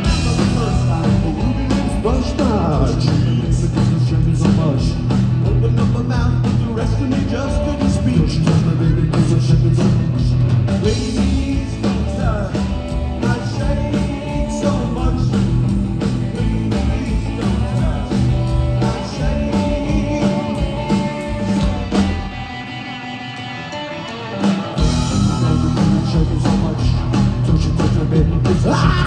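Rock music playing; the low end drops away for a few seconds about three-quarters of the way through, then comes back in full.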